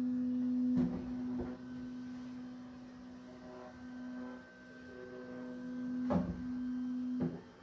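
Bambu Lab X1 Carbon 3D printer running its automated filament-unload routine: a steady motor hum with a fainter higher whine, broken by a few sharp clicks.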